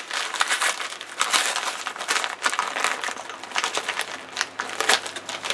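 A white plastic padded mailer crinkling and crackling in irregular bursts as it is handled and opened by hand.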